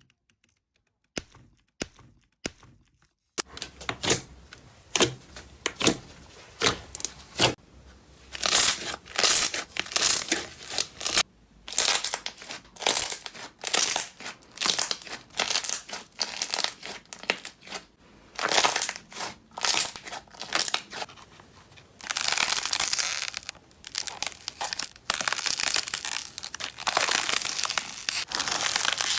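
Slime being pressed, squeezed and stretched by hand, giving off a dense crackling and crunching made of many small pops, in irregular handfuls. It starts a few seconds in, after a few faint clicks.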